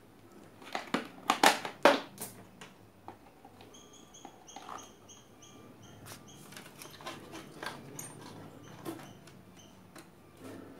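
Clicks and knocks of hands handling the opened CRT TV chassis, loudest in the first two seconds. About four seconds in comes a quick run of about six short, high chirps.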